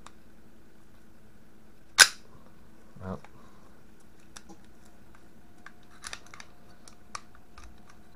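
Steel slide and frame of a Polish P-64 pistol being worked back together during reassembly: one loud, sharp metallic snap about two seconds in, a duller knock a second later, then a run of small light clicks as the parts are fitted.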